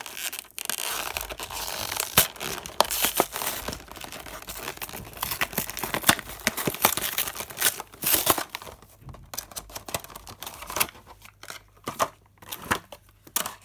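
Toy box packaging being torn open and crinkled by hand: a busy run of tearing and crackling rustles with sharp clicks, thinning to scattered rustles in the last few seconds.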